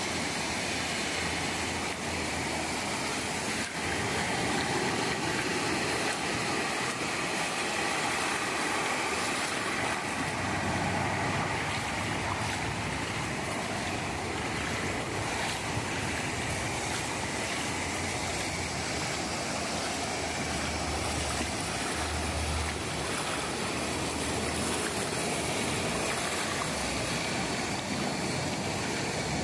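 Small waves breaking and washing up a sandy beach: a steady surf noise.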